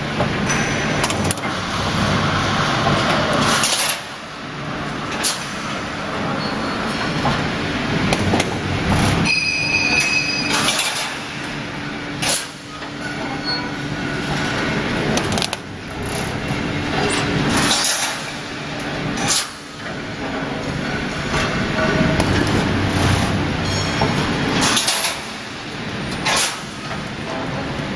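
Automatic heavy steel-mesh (reinforcing mesh) welding machine running: a steady low hum, broken by a sharp clank as the welding heads cycle every second or two. A short high whine sounds about ten seconds in.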